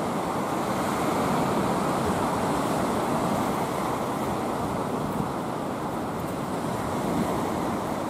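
Sea surf: small waves breaking and washing up a sandy beach in a steady rush.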